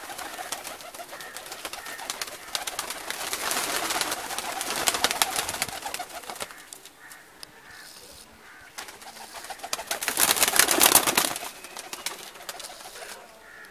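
Domestic pigeons cooing, with two stretches of loud rustling noise, the louder one about ten seconds in.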